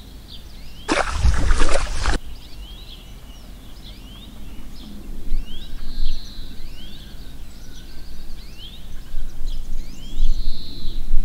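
A short rush of water poured from a small clay pot, about a second in. Then birds chirping over a faint steady hiss.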